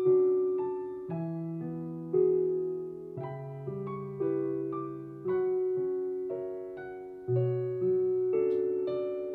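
Background music: a slow solo piano piece, notes and chords struck about once a second, each ringing and fading away.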